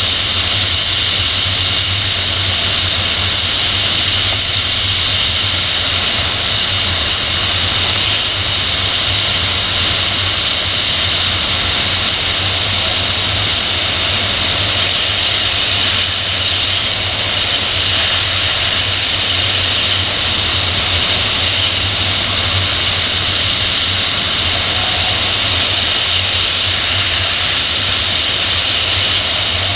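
Steady rush of airflow over a PIK-20 sailplane in gliding flight, buffeting the tail-mounted camera's microphone: a constant high hiss over a low rumble, with no engine.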